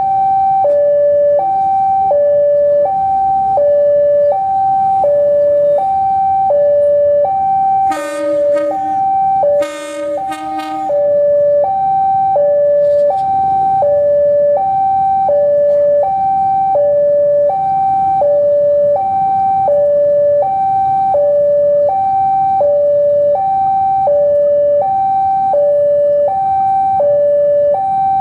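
Railway level-crossing warning alarm sounding a steady electronic two-tone, high and low alternating about once a second, warning of a train approaching, over the low rumble of a diesel locomotive moving slowly.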